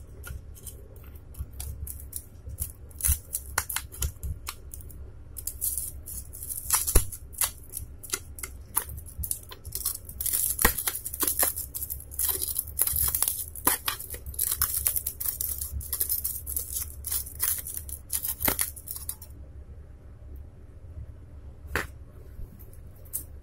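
Flat-blade screwdriver prying and scraping along the soldered rim of a cotton candy machine's spinner head, metal grating on blackened metal in a long run of irregular scrapes and sharp clicks. It goes quieter for the last few seconds, with one more click near the end.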